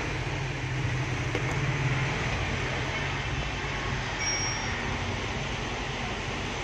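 Steady low mechanical hum with an even hiss, unchanging throughout. A short high-pitched tone sounds about four seconds in.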